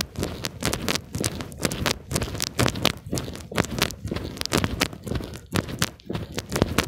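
Footsteps of a person walking at a steady pace, about two crisp steps a second.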